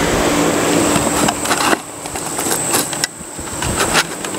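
A steady mechanical hum with a high whine, broken by rustling and clicks near the microphone.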